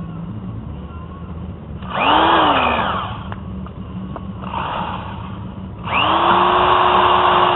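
Drill running in short bursts while boring a centre hole through a thick aluminum plate: a brief spin-up and stop about two seconds in, then a steady run from about six seconds in.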